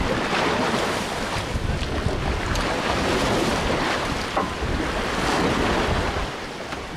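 Wind buffeting the microphone over the wash of sea waves around a charter fishing boat, a steady rushing noise.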